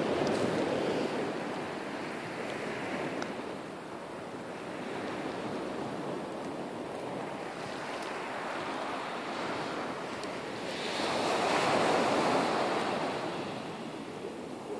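Sea waves washing ashore, a steady wash that swells into a louder surge at the start and again about eleven seconds in.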